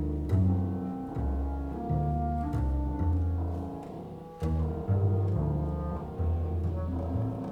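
Contemporary chamber music for clarinet, violin, double bass, guitar and piano: a run of low held double bass notes, each changing pitch after a second or so, with sharp struck or plucked notes cutting in above them several times.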